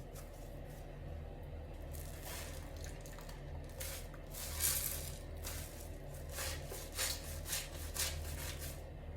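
Soap being worked by hand in a run of short wet squishing and scraping strokes. They start about two seconds in and are loudest around the middle.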